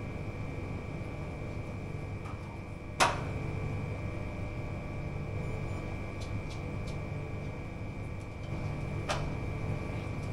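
Steady room hum with a faint high-pitched whine, broken by a sharp click about three seconds in and a fainter one near the end.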